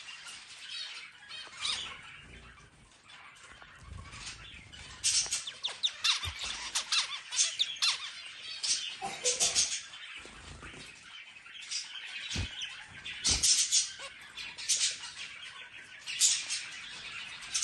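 Zebra finch singing: repeated bursts of short, high notes in quick clusters. Two brief low knocks come in the second half.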